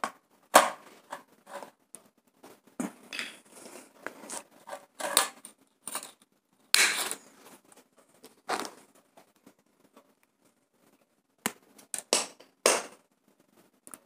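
Scattered short scrapes, clicks and rustles as stiff electrical wires and a small plastic-based relay module are handled and set down on a wiring board, with a quiet pause a little past the middle.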